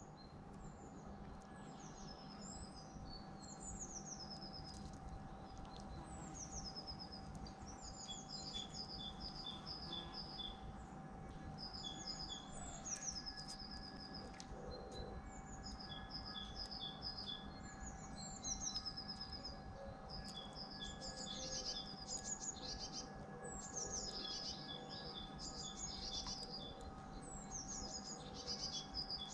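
Small songbirds singing in the background, short high trilled phrases repeating over and over and coming more often later on, with a faint steady hum underneath.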